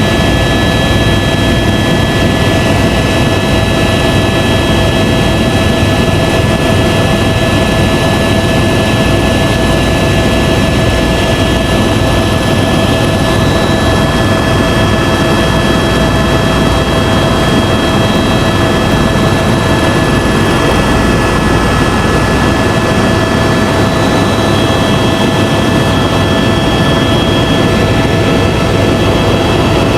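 Helicopter in flight heard from inside the cabin: loud, steady engine and rotor noise with a constant high whine.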